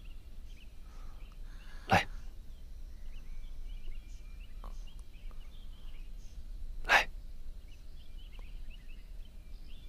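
A person gives two short, sharp coughs about five seconds apart. Faint high chirping sounds in the background.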